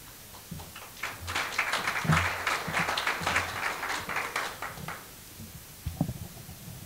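Audience applauding for about four seconds and dying away, followed near the end by a few low bumps of a microphone being handled on its stand.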